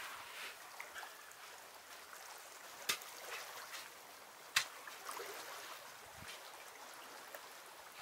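Moving water, heard as a steady trickling hiss, with two sharp knocks about three and four and a half seconds in.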